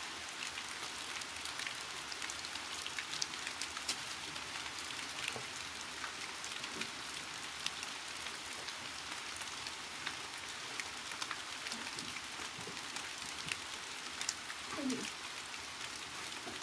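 Steady hissing noise full of small crackling ticks, with a brief faint voice-like sound about fifteen seconds in.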